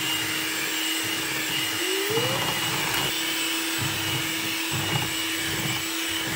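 Electric hand mixer running at a steady speed, its beaters whisking cake batter in a plastic bowl.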